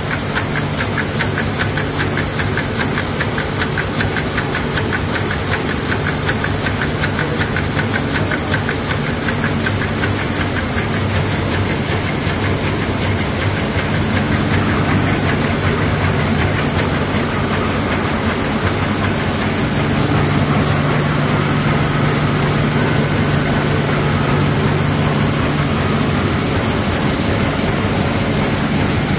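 Heidelberg Speedmaster XL 75 four-colour offset press with coating unit running: a steady mechanical hum with a fast, even clatter.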